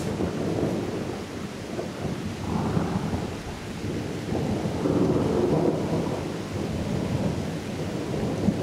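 Thunder rumbling over falling rain during a thunderstorm, growing louder about five seconds in.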